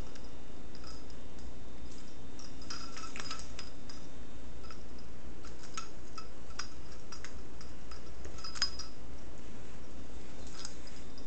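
A small dog's claws clicking and scratching in irregular bursts as it digs at and drags a fleece pet bed across hardwood and a rug, nesting before lying down, over a steady low hum.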